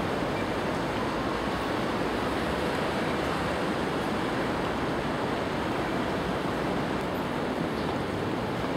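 Steady rushing of river water flowing fast beneath a footbridge, an even unbroken noise.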